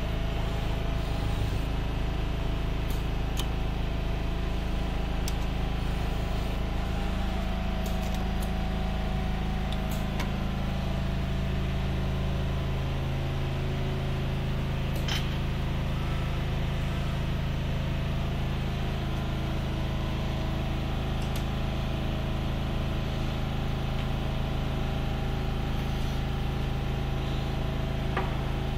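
Steady machine hum from a Festo robot assembly station with a Mitsubishi RV-2AJ arm running its program, with a few short sharp clicks scattered through.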